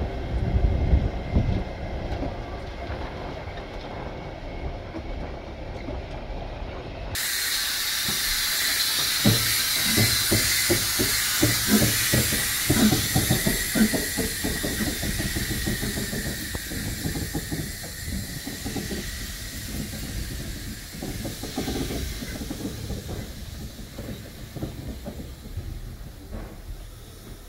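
A narrow-gauge diesel locomotive rumbling low as it hauls wagons past. About seven seconds in, the sound cuts to a narrow-gauge steam locomotive hissing loudly, with a run of exhaust chuffs as it moves slowly off, the hiss then fading.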